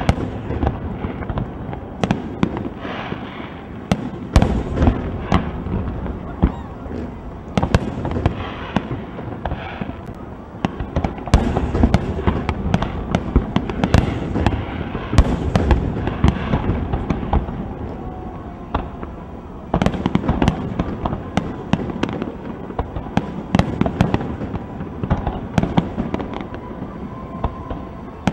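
Aerial fireworks shells bursting one after another in a continuous barrage: dense booms and sharp reports over a rolling rumble. There is a short lull about two-thirds through, then the reports come back loud.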